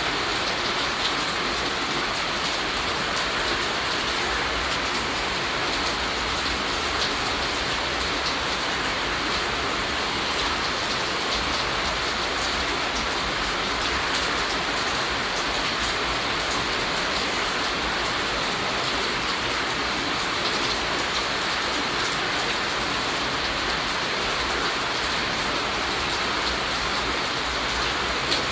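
Steady rain falling and pattering on surfaces, an even dense hiss with small droplet ticks.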